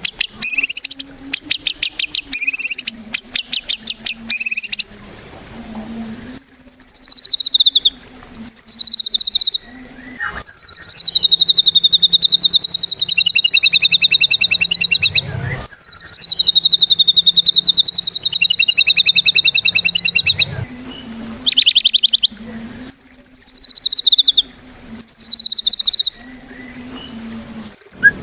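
White-rumped shama (murai batu) singing loudly in long phrases of fast, buzzing rattled trills that sweep up and down in pitch, separated by short pauses, with the two longest phrases in the middle.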